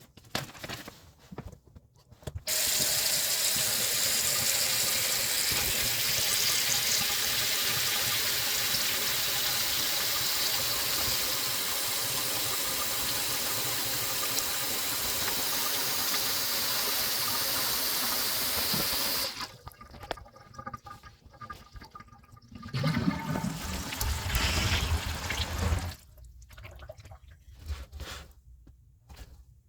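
Toilet flushing: a steady rush of water starts about two seconds in, runs for some seventeen seconds and stops suddenly. A few seconds later comes a shorter, deeper rush of water.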